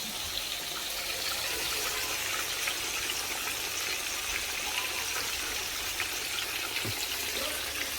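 Steady sizzling of food frying in hot oil in a pan, with a constant hiss and many small crackles and pops.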